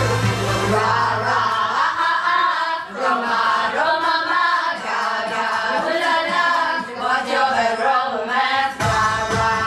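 Karaoke: several voices singing along together over a pop backing track. The bass of the track drops out about a second in and comes back near the end.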